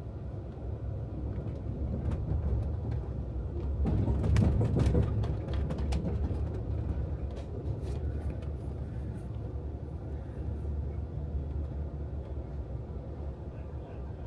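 Amtrak California Zephyr passenger train rolling along the track, heard from inside a sleeping-car roomette: a steady low rumble of wheels on rails, swelling with a burst of clicks and clatter about four seconds in.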